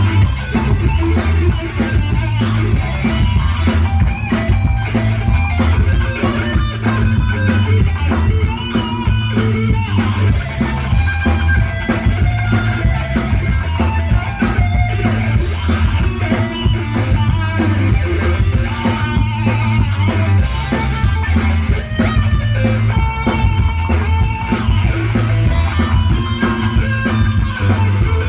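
Live rock band playing: electric guitar over bass guitar and a drum kit, loud and steady throughout.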